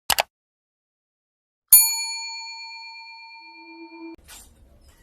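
A bright bell-like ding, struck once about two seconds in and ringing out as it fades over about two and a half seconds. It follows a short double swish at the very start, and near the end it gives way to a faint low hum.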